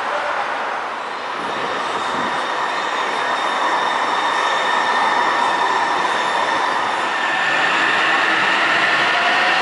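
Sound Transit Link light rail train running through a station: wheels on the rails with a steady electric whine of several tones over them, getting louder after about a second in.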